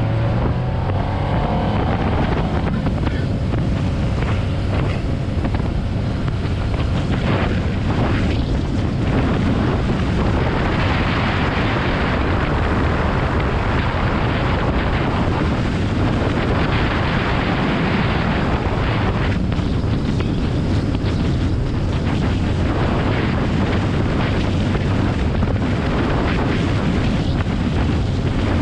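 Outboard motor running at speed on an aluminum bass boat, with water rushing along the hull and heavy wind buffeting the microphone in gusts over a steady low engine hum.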